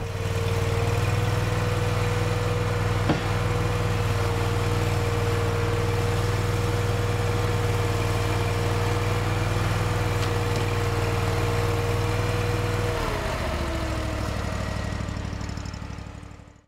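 Toro Dingo compact utility loader's engine running steadily at speed with a steady whine. About thirteen seconds in it throttles down and the whine drops in pitch, then the sound fades out.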